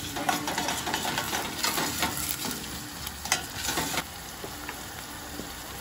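Chopped onions and brown sugar sizzling in butter in a stainless steel pot as they sweat and caramelise, with a spoon stirring and scraping against the pot. The stirring stops about four seconds in, leaving a quieter steady sizzle.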